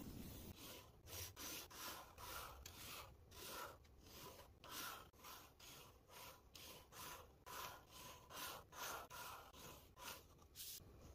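Faint scratching of a fine-tip pen nib on paper as lines are ruled against a set square, a quick series of short strokes about two a second.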